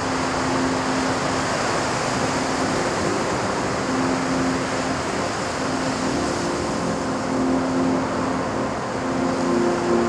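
Steady rushing noise of heavy storm surf and wind, with soft sustained music notes fading in and out underneath.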